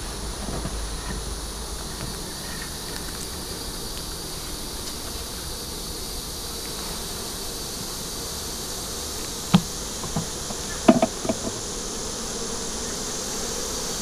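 Honey bees buzzing steadily around an opened hive, stirred up by the intrusion. About two-thirds of the way through come a few short sharp clicks and knocks as a metal hive tool pries a stuck wooden frame loose.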